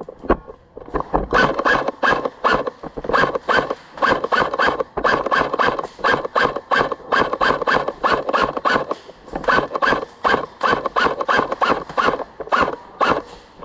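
Airsoft guns firing rapid single shots, about three or four a second in uneven runs with short pauses.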